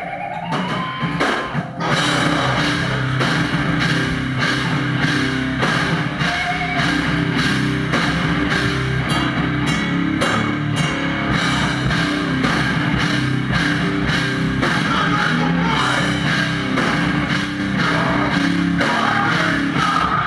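Live heavy band with electric guitar and drum kit playing loud and fast. A held guitar note glides in pitch at first, then the full band comes in about two seconds in with rapid, steady drum hits.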